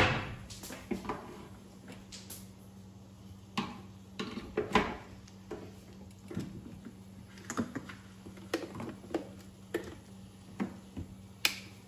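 Scattered sharp clicks and knocks of a plug, power cord and pan being handled as an electric frying pan is set up and plugged in to heat, with the loudest click at the very start. A steady low hum runs underneath.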